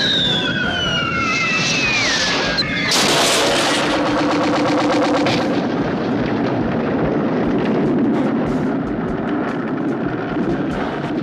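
Sound effects from a 1970s TV action episode: a whistle falling in pitch over the first two or three seconds, then a loud blast about three seconds in, which gives way to a steady rumble with scattered cracks.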